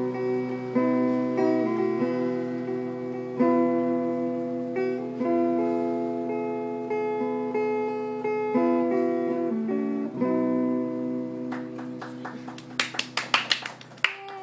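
Hollow-body electric guitar played clean, picking sustained chords that change every second or so; the last chord rings out about ten seconds in. Scattered clapping starts near the end.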